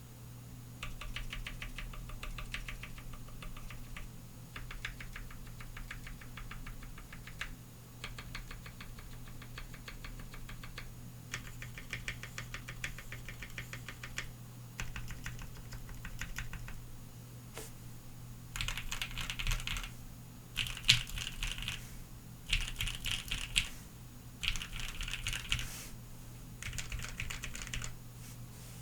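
Bakeneko60 mechanical keyboard with Lavender switches: individual keys tapped rapidly over and over in runs of one to three seconds, each run a quick string of clicks. The runs in the last third are louder.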